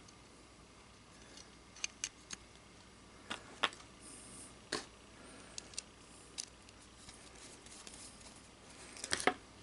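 Light, sharp clicks and taps of small metal parts being handled while a P1853 Enfield musket lock is put back together, scattered irregularly, with a quick cluster near the end.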